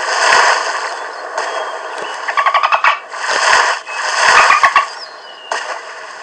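Sound effects from a LEGO catalogue 3D app: rushing whooshes that swell and fade several times, with a quick rattle of clicks, about ten a second, a little past two seconds in.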